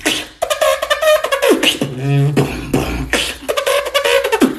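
Beatboxer's voice imitating animal calls: a string of loud vocal cries whose pitch glides downward, mixed with sharp mouth-percussion hits and a rapid buzzing rattle about two seconds in.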